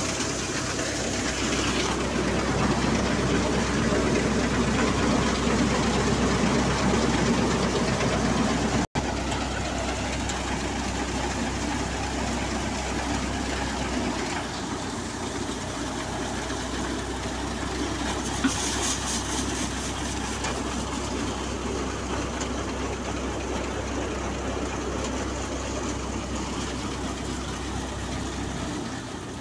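Tractor-driven Royal 2020 thresher running steadily under load, its drum and fan whirring over the tractor engine's steady low hum as crop passes through. A brief break about a third of the way in, then the same steady running, a little quieter.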